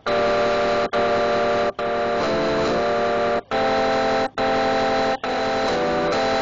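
A loud buzzing drone: a sustained chord of many tones, broken by short gaps every second or so. Twice it drops to a lower chord for about half a second.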